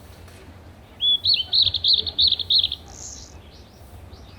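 A bird singing a quick run of about seven high, rapidly repeated chirps lasting under two seconds, followed by a few fainter short chirps, over a steady low hum.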